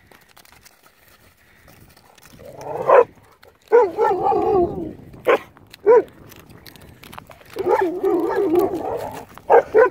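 Dogs barking during rough play. Two longer wavering calls, about four and eight seconds in, with short single barks between them and near the end.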